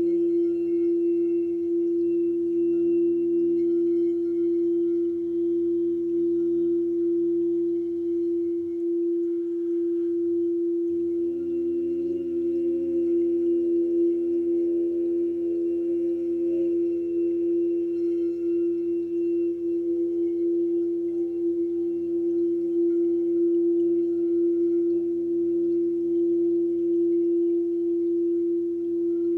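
Sound-healing drone: one strong, steady pure tone held without a break, with fainter overtones above and lower steady tones beneath. The lower tones drop out for about two seconds around nine seconds in.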